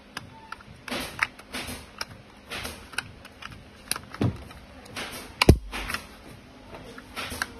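Plastic clicks, taps and rattles from a BMW 6 Series dashboard air-vent grille being handled and worked on, with one louder sharp knock about five and a half seconds in.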